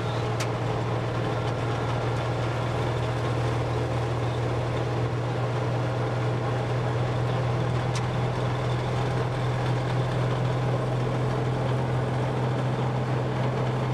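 Dodge M37 military truck's flathead straight-six engine running steadily on the road, heard from inside the cab as a constant low drone with road and drivetrain noise.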